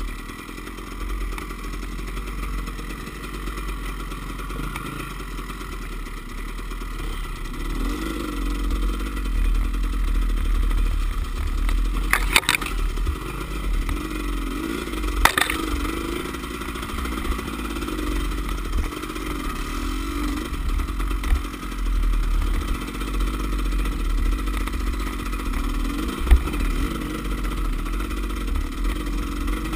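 Off-road motorcycle engines running at low to middling revs, rising and falling as the bikes pick their way up a rough trail, with the bike rattling and two sharp knocks about twelve and fifteen seconds in.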